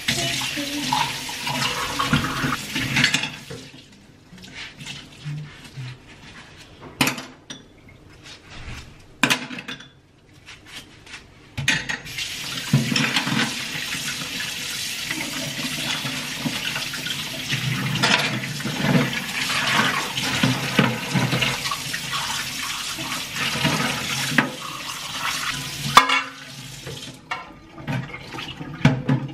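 Kitchen tap running into a stainless steel sink during hand dish-washing, with clinks and knocks of dishes and utensils. The water stops about four seconds in, leaving separate knocks and clinks, then runs steadily again from about twelve seconds until shortly before the end, which brings more clattering of dishes.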